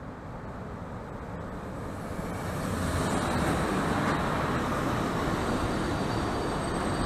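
EP09 electric locomotive hauling a train of passenger coaches into the platform. Its running noise grows louder as it approaches and stays at its loudest from about three seconds in as the locomotive and the first coaches pass close. A faint high whine can be heard above the noise.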